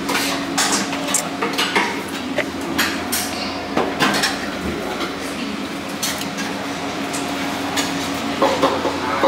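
Dishes and cutlery clinking and clattering at a self-serve breakfast buffet, a string of short clinks over a steady low hum.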